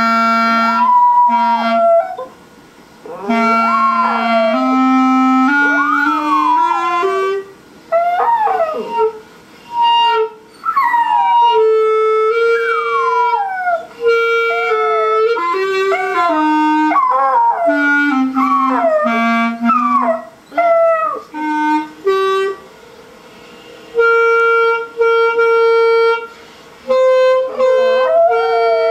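A dog howling along to a musical instrument. The instrument plays held, steady notes that step up and down, and the dog's rising and falling howls and yips weave between and over them, in phrases with short pauses.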